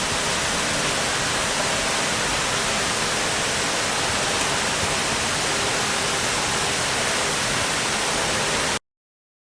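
Steady rushing roar of a waterfall, heard close up. It cuts off suddenly near the end.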